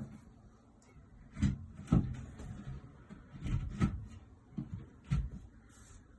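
Dull knocks and thumps of IKEA Alex drawer unit panels being handled and pushed together during assembly, about six of them spread over a few seconds.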